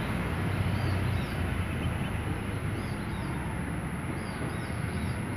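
Steady outdoor background rumble and hiss, with a constant thin high whine and faint high chirps of small birds now and then.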